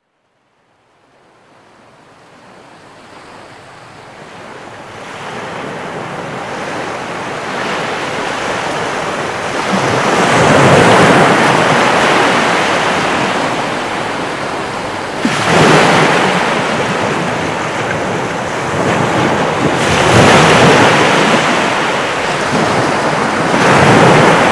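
Sea waves washing in, fading up from silence over the first several seconds and then surging louder about every four to five seconds.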